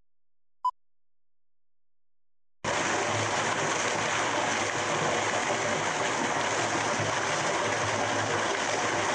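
A single short beep from a film-leader countdown, then about two and a half seconds in a loud, steady rushing noise starts abruptly and carries on evenly.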